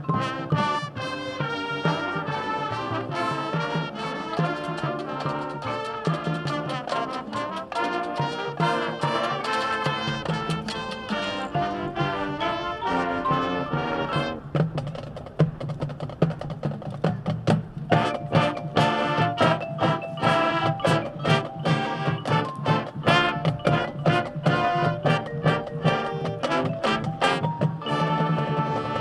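High school marching band playing its field show: brass and drumline together, with sharp, evenly repeated accented hits in the second half.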